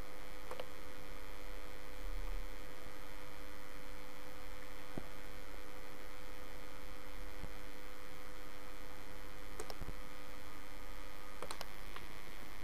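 Steady electrical mains hum and hiss on the recording, with a few faint clicks scattered through it.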